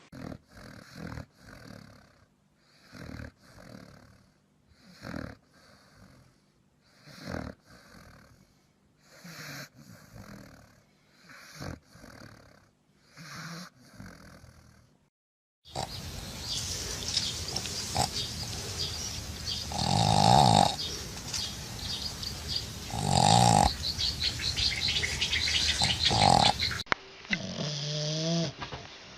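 Dogs snoring in their sleep. First come soft snores every second or two; after a short break, louder snores come about three seconds apart over a steady hiss.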